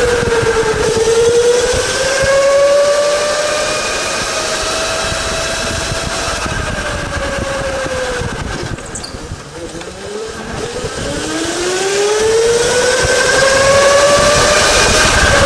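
Electric go-kart motor whining as the kart drives round the track, the pitch rising and falling with its speed over tyre noise. The whine drops away and fades about two-thirds of the way through, then climbs again steadily as the kart speeds back up.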